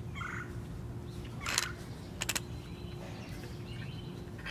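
Click-type torque wrench being adjusted by turning its handle, giving a short rasp and then two or three sharp clicks, over a steady low hum. A bird chirps briefly at the start.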